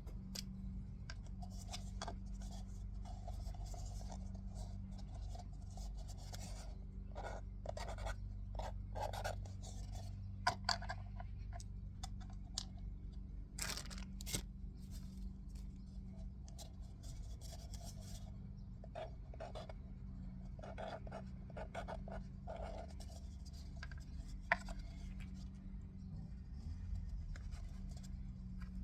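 Screws and small metal parts rattling and clicking as they are picked through by hand in a tub, with scattered sharper clinks, over a steady low hum.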